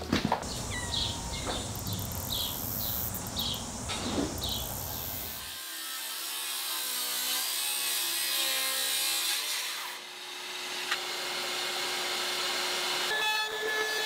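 Power tools cutting wood in several short shots: a Makita cordless circular saw cutting, then a cordless trim router running with a steady whine near the end.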